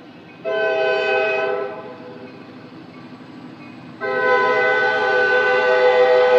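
Air horn of Indiana & Ohio diesel locomotive #2165 blowing for a grade crossing: a blast of about a second, then a long blast that starts about four seconds in as the locomotive reaches the crossing and is still sounding at the end.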